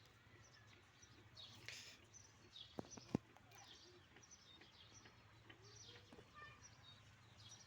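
Faint bird chirps, short falling calls every second or so, over a low steady hum, with two sharp clicks about three seconds in.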